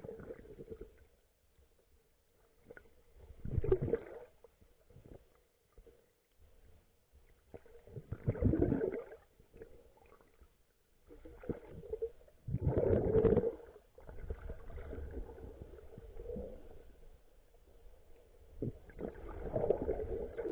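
Muffled water sloshing and gurgling, heard from a camera held underwater. It comes in irregular surges a few seconds apart, with a low rumble between them.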